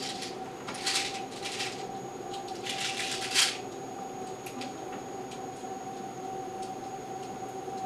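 Short rustling and rattling bursts from a small plastic pill bottle of Tic Tacs being handled, three or four in the first few seconds, then a few faint ticks. A faint steady whine runs underneath.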